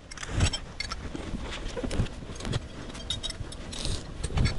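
Steel wrenches and sockets clinking and clattering as they are slid over and dropped into place: a string of sharp metallic clicks and knocks, loudest just after the start and again near the end.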